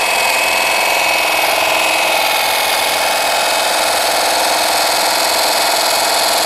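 KM Grand LR-H510 cordless hedge trimmer running steadily, its 510 mm double-sided reciprocating blade cutting through conifer foliage.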